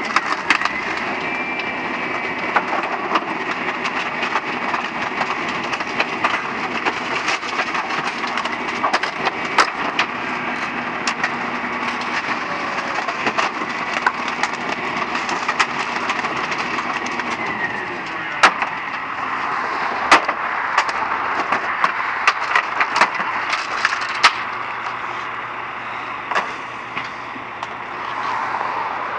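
Heil 5000 rear-loader garbage truck running, its hydraulic packer working with a steady whine that drops away about two-thirds through. Many sharp knocks, cracks and clatters as junk and furniture are thrown into the hopper and crushed, coming thickest in the second half.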